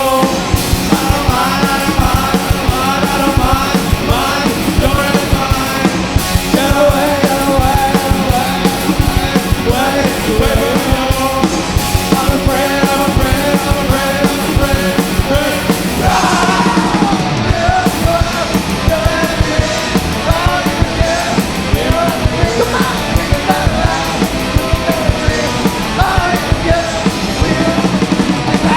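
Loud rock band playing heavy punk-metal: pounding drums, distorted electric guitars and sung, at times yelled, vocals.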